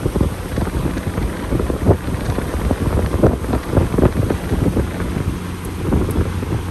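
Boat motor running with a steady low hum, overlaid by irregular gusts of wind buffeting the microphone.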